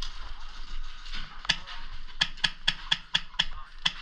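Airsoft gun firing a quick string of sharp shots, about eight of them at roughly four a second, starting about one and a half seconds in.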